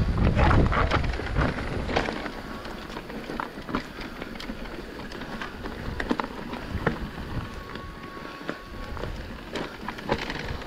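Mountain bike ridden over a rough trail: irregular rattling and clicking from the bike and its tyres on the ground, with wind buffeting the microphone in the first second.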